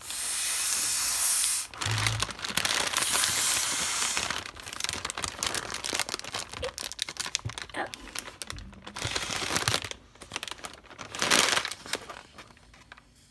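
Breath blown hard through a small plastic straw into a toy's packaging: two long steady blows of about two seconds each at the start and a shorter one near the end, with plastic packaging crinkling in between.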